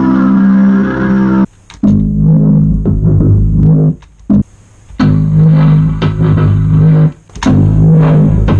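Synthesizer music: held low synth notes with rich overtones, played in four phrases of one and a half to two seconds, each cut off by a short silence.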